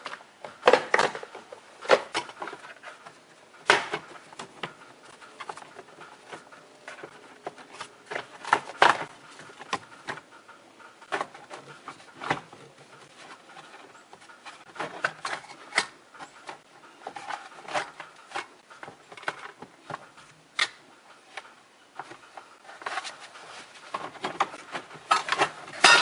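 Plastic steering column cover halves being pried apart with a flat-blade screwdriver and handled: irregular plastic clicks, snaps and knocks, some loud and sharp, with softer rubbing between them.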